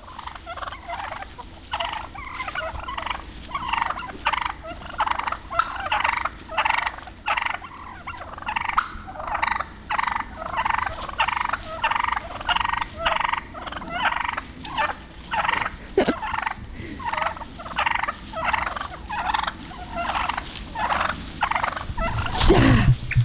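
A flock of wild turkeys calling: a steady run of short repeated calls, about two a second. A brief louder rumble comes near the end.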